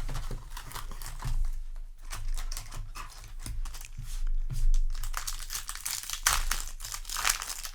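Plastic wrapping on a Yu-Gi-Oh! trading card box or booster pack being handled, crinkling and tearing open in irregular crackles, busiest in the last few seconds.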